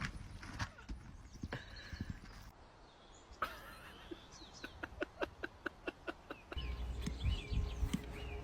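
Horse hooves clip-clopping in an even run of about four steps a second near the middle. A low rumble comes in near the end.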